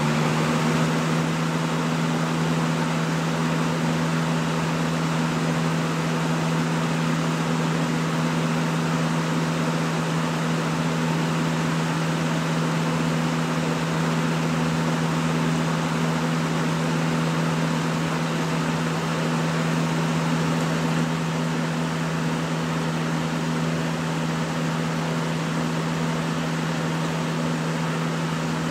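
Lasko 20-inch box fan (model 3723) running steadily: a constant motor hum under an even rush of air from the blades.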